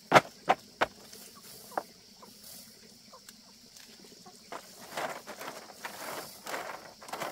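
Three sharp knocks in quick succession, a fourth about a second later, then a run of irregular rustling and scraping.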